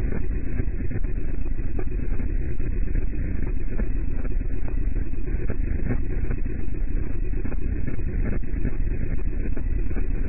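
Heavily effects-processed logo audio distorted into a loud, dense, steady rumbling noise, with nothing clear on top of it.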